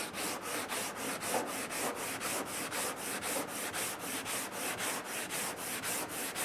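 Long hand sanding block with sandpaper pushed and pulled over cured body filler on a car panel: a steady scratchy rasp in an even rhythm of about two to three strokes a second. The paper is worn out, sounding as if it glides over the high spot rather than cutting.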